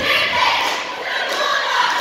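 Crowd of spectators and players shouting and cheering together, echoing in a gym.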